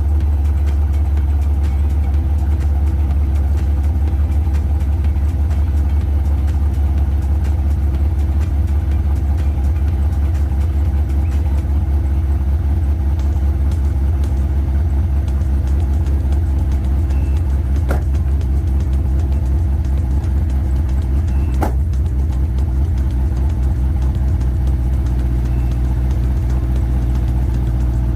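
Oldsmobile Cutlass engine idling steadily after a cold start, with no revving. Two brief clicks stand out over it, about eighteen and twenty-two seconds in.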